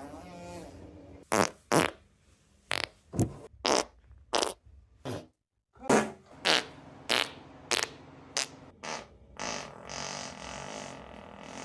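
Farts: a long wavering one at the start, then about a dozen short ones in quick succession, and a longer, rougher one over the last couple of seconds.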